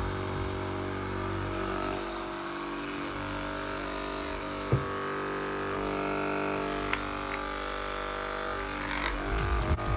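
Homedics Physio massage gun running with its round head attached, its motor humming steadily as the head hammers back and forth; a little loud. One short sharp knock about halfway through.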